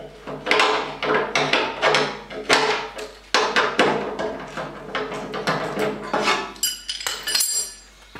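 Ratchet wrench with a 5/8 inch socket clicking through repeated strokes as it loosens the pivot bolt on the planer's motor-mounting frame, to slacken the drive belts. There is a brief high metallic ringing about seven seconds in.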